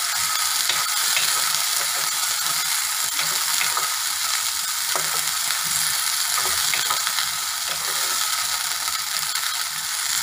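Chopped green bell peppers sizzling steadily in hot oil in a kadhai. A wooden spatula stirring them scrapes and taps against the pan now and then.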